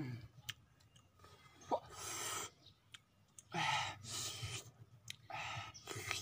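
Eating sounds from grilled chicken being torn and eaten by hand: scattered mouth clicks and several breathy sighs.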